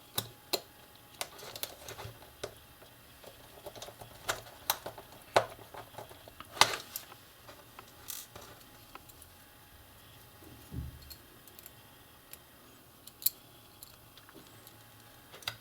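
Scattered small clicks and taps of a precision screwdriver and the phone's plastic housing as tiny plastic screws are driven into the top corners, with a soft low bump about eleven seconds in.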